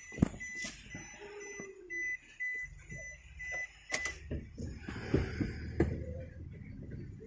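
Car dashboard warning chime beeping at one steady pitch, about two to three beeps a second, stopping with a sharp click about four seconds in. A low steady rumble comes in under it a little before three seconds and carries on.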